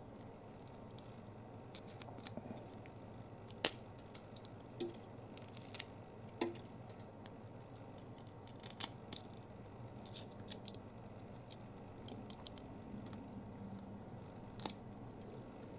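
Small pliers pulling the glued metal frame strip away from the edge of an iPhone 7 LCD assembly. The sound is scattered sharp clicks and snaps at irregular intervals as the frame cracks loose, the loudest a little under four seconds in.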